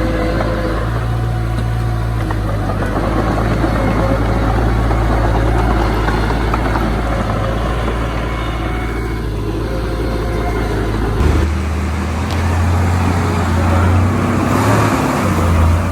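Diesel engines of heavy earthmoving machinery running steadily with a low engine hum. About eleven seconds in the engine note changes abruptly to a different, deeper low drone.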